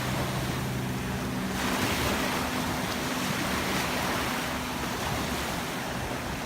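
A steady, loud rushing noise with a low hum under it that fades partway through; it cuts off suddenly at the end.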